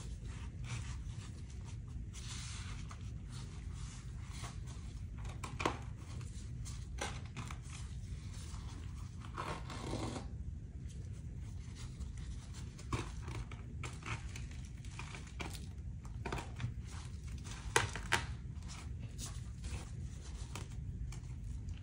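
Gloved hands handling and peeling apart layers of ballistic fabric from a shot armor plate: fabric rustling and fibres pulling loose, with scattered small clicks and a couple of sharper ticks. A steady low hum lies underneath.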